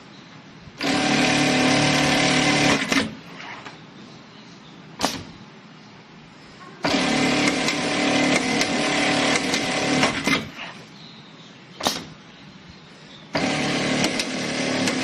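Long-arm lockstitch sewing machine stitching in three steady runs of a few seconds each, with a single sharp click in each pause between runs.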